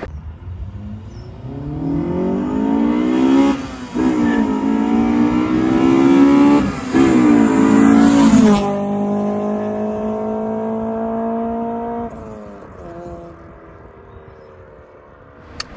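Honda B16A VTEC four-cylinder engine of an EK4 Ballade accelerating hard through the gears: revs climb, drop at an upshift, and climb again, three times in quick succession. About twelve seconds in the throttle is lifted and the engine note falls away quieter as the car coasts.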